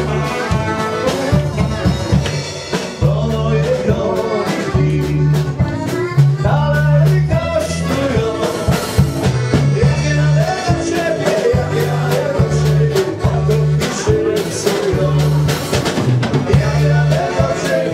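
Live folk dance band playing an upbeat tune: drum kit and accordion over a steady bouncing bass line, with a voice singing.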